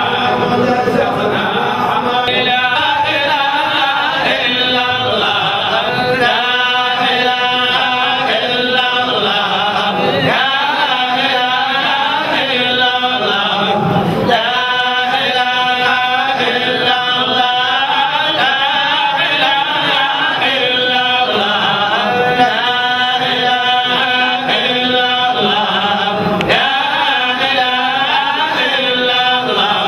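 Men's voices chanting a devotional Islamic chant through microphones, in long sustained melodic phrases that run on without a break.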